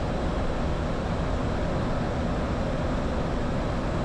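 Steady cabin noise on the flight deck of a Boeing 737-800 in descent: an even rush of airflow and engine noise with no change in level.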